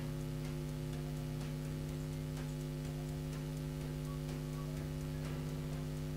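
Steady electrical mains hum with its overtones, even in level throughout, with faint scattered ticks.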